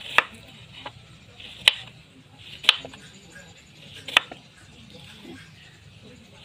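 Kitchen knife slicing peeled angleng bananas into thin strips on a wooden cutting board, the blade knocking the board with each cut. There are four sharp knocks roughly a second apart, then a quieter stretch near the end.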